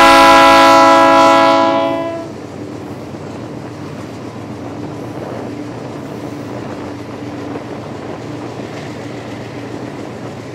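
Locomotive air horn sounding a steady multi-note chord that cuts off about two seconds in, followed by the train's steady running rumble and wheel noise on the rails.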